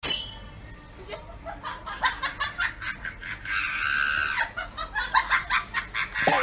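Repeated bursts of laughter, beginning with a sudden sharp high-pitched sound.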